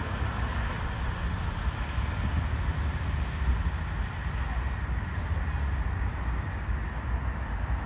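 A vehicle engine running, a steady low rumble with no siren.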